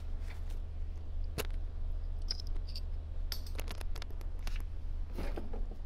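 Small parts and fittings handled on a workbench: scattered clicks and knocks, with a quick cluster about three and a half seconds in and another near the end, over a steady low hum.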